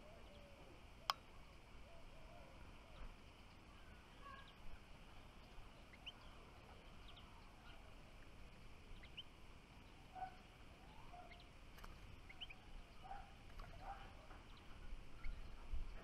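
Faint outdoor birdsong: small songbirds giving short, scattered chirps, with some lower calls mixed in. A single sharp click comes about a second in, over a low rumble.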